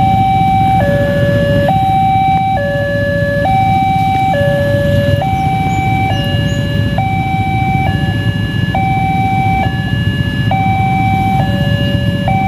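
Railway level-crossing warning alarm sounding a steady two-tone signal, alternating between a higher and a lower note, each held just under a second. It warns that the barriers are down for an approaching train.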